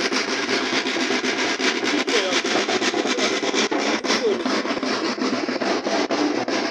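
Cloth rubbing and scraping directly against a phone's microphone as the phone is handled or carried: a continuous rustling scrape broken by many small clicks.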